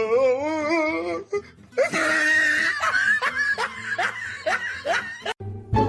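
Hearty human laughter: first a wavering, wobbling laugh, then a long stretch of loud laughing in quick repeated gasps. It cuts off abruptly near the end.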